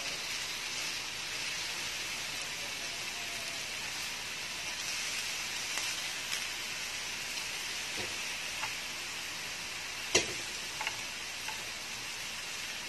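Chicken sizzling on a round Korean-style grill pan, a steady hiss. A few sharp clicks of chopsticks against the pan sound near the end, the loudest about ten seconds in.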